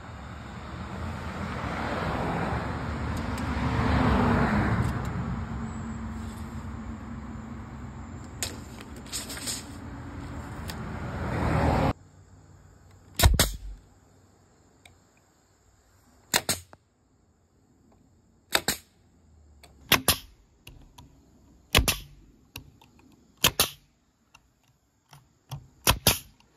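A loud rushing noise swells and fades over the first twelve seconds and cuts off suddenly. Then an 18-gauge DeWalt brad nailer fires about seven single shots, one every one to three seconds, driving brads through plywood into a wooden frame.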